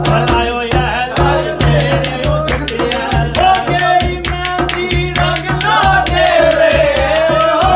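Punjabi folk song: a singer's wavering melody over a fast, driving hand-drum rhythm with deep bass beats.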